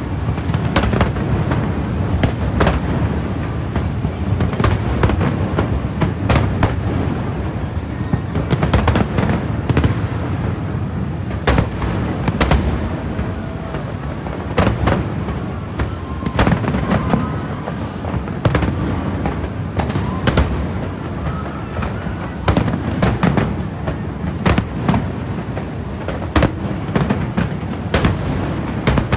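Aerial firework shells bursting in quick succession, a steady run of sharp cracks and bangs over a continuous low rumble.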